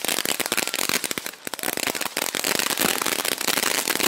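Ground firework going off, a fast, dense crackle of small pops, with a short lull a little over a second in.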